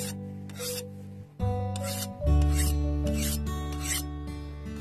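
A hand file scraped across the edge of a quenched steel knife blade in about six short strokes, over acoustic guitar background music.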